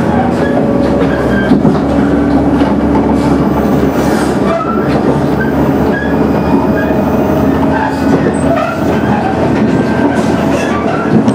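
KiHa 110 series diesel railcar running at speed, heard from inside the passenger cabin: a steady diesel engine drone under the rumble of the wheels on the rails.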